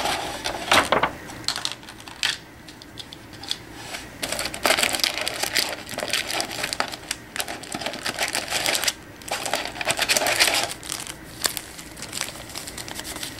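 Metal collectible card tin being opened and handled: a run of clicks, taps and rattles from the tin and its lid, with several stretches of crinkling plastic.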